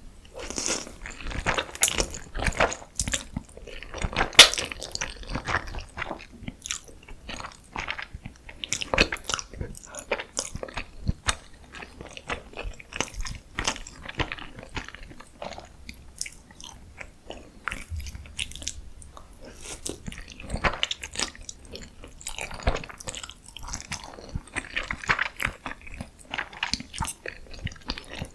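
Close-miked eating: a person bites into and chews crunchy food, with a steady stream of crisp, irregular crunches.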